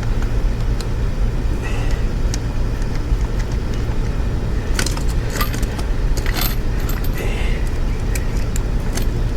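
Metal hand tools and small motorcycle parts clinking and rattling while handlebar hardware is being undone, in scattered clicks that bunch together about halfway through. A steady low hum runs underneath.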